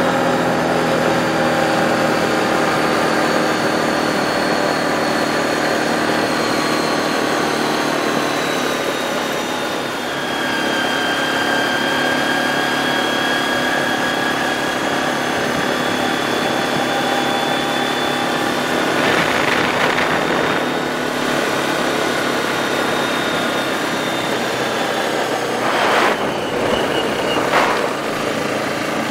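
ATV engine running steadily under way. Its pitch drops a little about a third of the way in. Short bursts of rushing noise come about two-thirds through and twice near the end.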